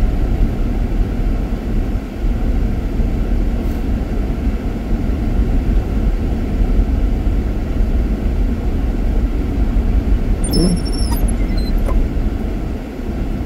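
Car driving slowly on a snow-covered road, heard from inside the cabin: a steady low rumble of tyres and engine. A brief faint high-pitched sound comes about ten seconds in.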